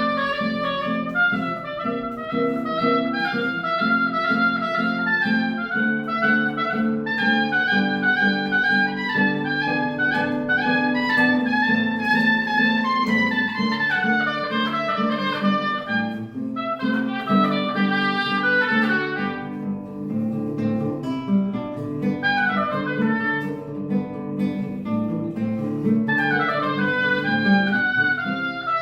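Live music: a bayan (button accordion) holding reedy chords with a plucked guitar, playing running melodic lines over them.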